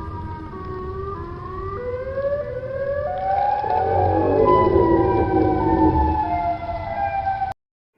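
Emergency alert alarm of several siren-like tones sliding upward in pitch together and growing louder, then holding high before cutting off abruptly near the end.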